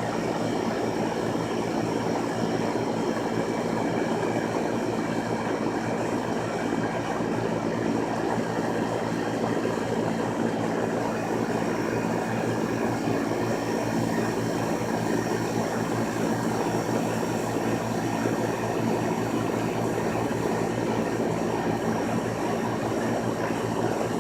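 Lennox air conditioner running steadily, a constant mechanical hum with several low steady tones under an even whir.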